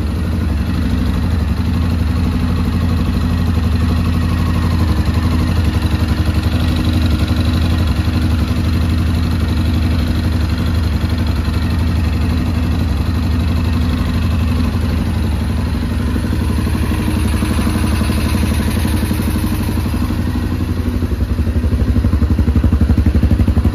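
Suzuki KingQuad 750's single-cylinder four-stroke engine idling steadily on its first run after being rebuilt and refitted to the frame, running smoothly and sounding healthy to the owner. It gets somewhat louder near the end.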